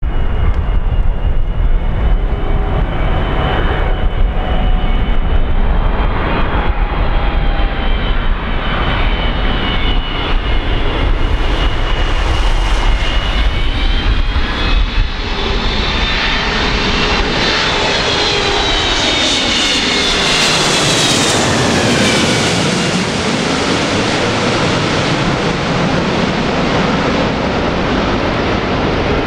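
Boeing 777-300 airliner's jet engines on landing approach: a steady loud jet noise with high whining tones that drop in pitch about twenty seconds in as the plane passes overhead, giving way to a broad rumble as it moves away.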